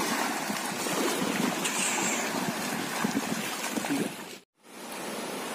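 Steady outdoor noise of shallow estuary water washing over a low breakwater, with wind on the microphone and light splashes from wading. It cuts off abruptly about four and a half seconds in, and a quieter steady hiss follows.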